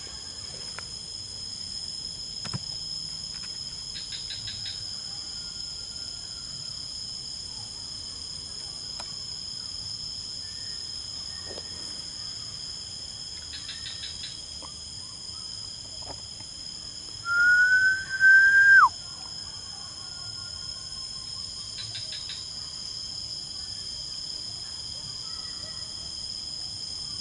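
Steady insect chorus of crickets, several shrill high-pitched drones, with three short pulsed trills spaced about nine seconds apart. About two-thirds of the way in comes the loudest sound: a clear whistle about a second and a half long that rises slightly and then drops sharply at the end.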